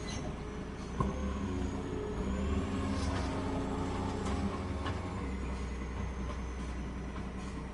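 A heavy logging machine's engine running steadily with a faint high whine, a sharp knock about a second in and a few fainter knocks later.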